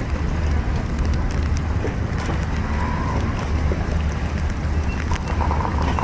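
Storm wind buffeting the microphone: a steady, fluttering low rumble under an even rushing hiss.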